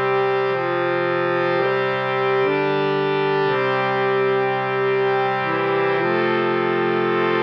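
Saras 32 harmonium playing held chords of reedy tones, moving to a new chord every second or two.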